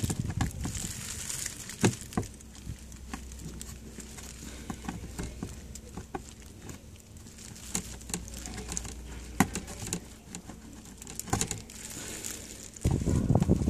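Scattered small clicks and scrapes of a flat screwdriver prying plastic push-pin clips out of a Mitsubishi Colt's plastic engine undertray, with a few sharper clicks among them. A louder rustling noise starts near the end.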